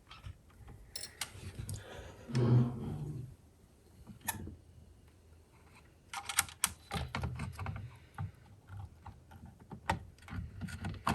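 Scattered small clicks and taps of hardware being handled as a CPU water block is set down and positioned on a motherboard, with a brief louder, lower handling sound about two and a half seconds in.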